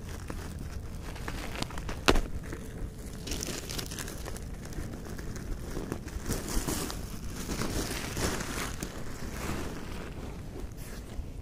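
Close, irregular rustling and crinkling of material being handled and shifted, with a sharp click about two seconds in.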